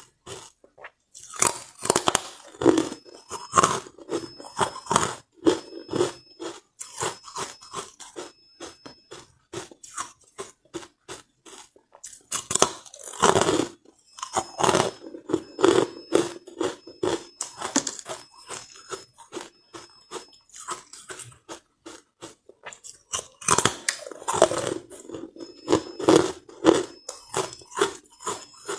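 Close-miked crunching of carbonated ice being bitten and chewed: three louder bites, about 2, 13 and 24 seconds in, each followed by a run of brittle crackling crunches as the aerated ice is chewed.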